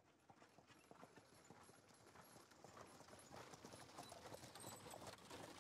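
Horse hooves clip-clopping, fading in quietly from silence and growing louder.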